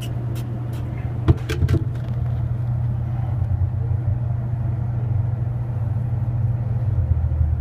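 Steady low mechanical hum from running machinery. About a second and a half in there are a couple of sharp knocks.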